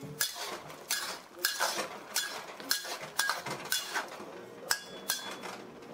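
Metal wok spatula and ladle scraping and clanking against a wok while stir-frying prawns, in strokes of roughly two a second.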